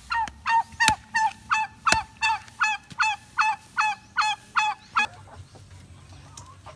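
Domestic turkey yelping: a run of about a dozen short, evenly spaced calls, each falling at the end, just under three a second, that stops abruptly about five seconds in.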